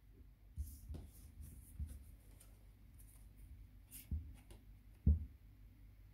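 Tarot cards being handled on a table: a few soft taps and brief brushing sounds as cards are drawn and laid down, the firmest tap about five seconds in.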